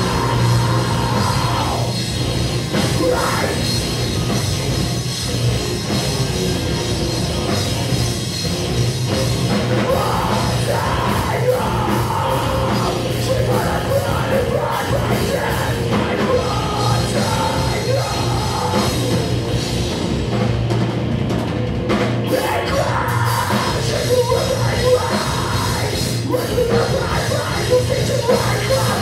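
Post-hardcore band playing live at full volume: electric guitars, keyboard and drum kit with a vocalist singing into the microphone.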